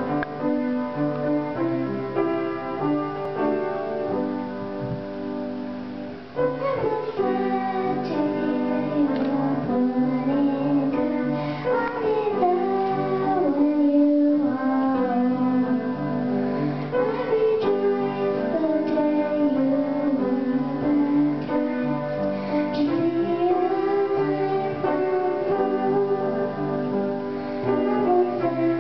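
Piano plays alone for about six seconds, then a young girl's voice comes in, singing a melody into a handheld microphone over the piano accompaniment.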